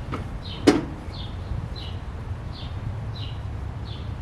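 Microwave oven running with a steady low hum, with one sharp clack about 0.7 seconds in. Short high chirps repeat about every two-thirds of a second over the hum.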